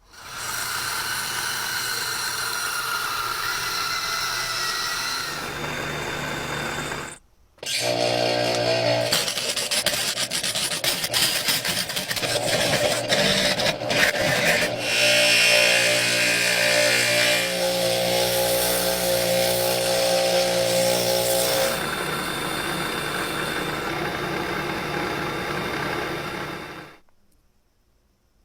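A small electric power tool running with a steady whine and rougher grinding or rubbing stretches, stopping briefly about seven seconds in and cutting off near the end.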